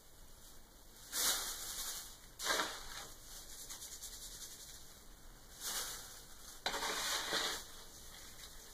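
Slotted litter scoop raking and sifting through cat litter in a litter box: four gritty, rustling bursts of scooping.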